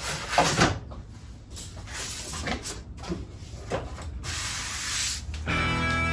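Rubbing and scraping strokes on wood during cabinet building, with a few knocks in the first second and a stretch of steady hiss just before the end. Guitar music comes in near the end.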